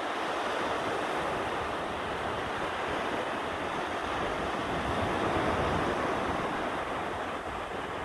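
Ocean surf breaking and washing up a sandy beach: a steady rushing wash of foam with a slight swell in the middle.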